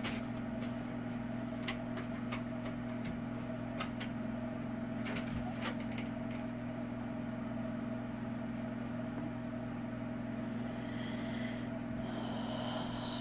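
Steady low electrical hum, with a few faint clicks in the first half and faint high-pitched sounds near the end.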